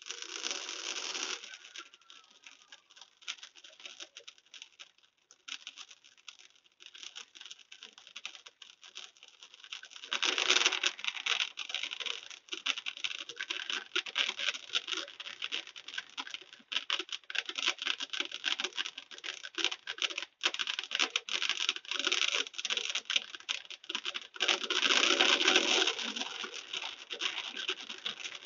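Fireworks crackling: a dense, continuous stream of small, rapid pops with no deep booms, swelling louder about ten seconds in and again near the end.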